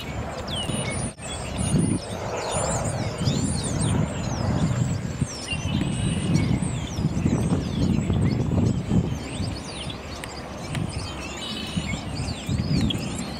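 Small birds chirping and twittering over a steady low rumble of outdoor background noise.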